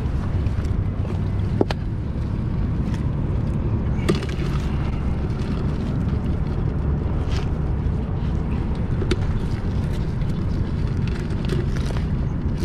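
A steady low rumble of wind buffeting the microphone, with scattered sharp clicks of stones and shells knocking together as rocks are turned over by hand on a rocky, muddy shoreline.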